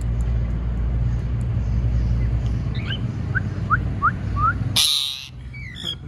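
Parrots calling: a run of four short rising chirps about three seconds in, then a loud harsh squawk near five seconds and a brief falling call just after. A steady low rumble underlies the chirps and drops away at the squawk.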